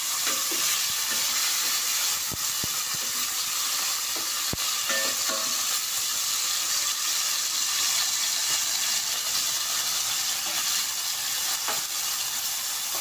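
Pork steak pieces sizzling in hot olive oil and butter in a frying pan, a steady hiss. A few sharp clicks of a wooden spatula and metal tongs against the pan, the first about two seconds in.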